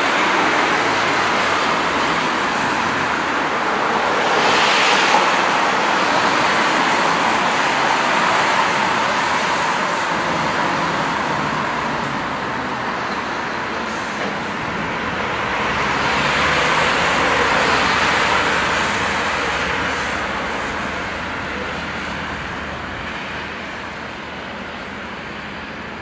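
Road traffic noise: a steady rush of passing vehicles that swells about five seconds in and again around seventeen seconds, then slowly fades. No warning siren is sounding.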